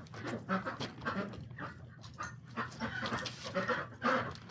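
Farm animals making a quick, irregular run of short sounds.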